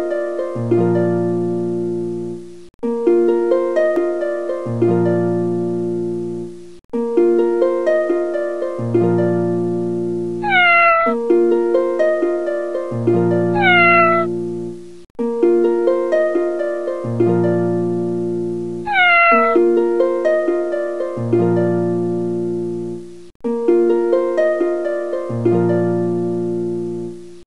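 Looping background music of plucked, harp-like notes over a low bass note, repeating every couple of seconds with short breaks between phrases. A cat meows three times in the middle stretch.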